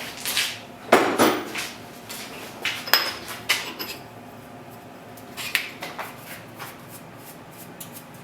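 Irregular metal clanks and clinks, loudest about a second in, as the steel milling vise is loosened and the freshly machined 6061 aluminum block is lifted out of it.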